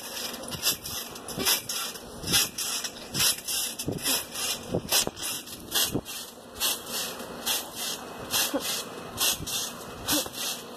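Jumping on a trampoline: rhythmic bumps, thuds and rustling of the bed with each bounce, about one bounce a second, picked up close by the jumper's handheld phone.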